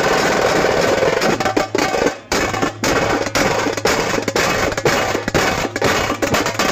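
Loud, fast drumming, with sharp strokes coming close together.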